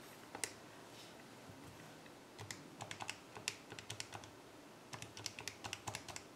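Buttons being pressed on a TI-84 Plus graphing calculator. There is one click about half a second in, then two quick runs of key clicks as a number is typed in.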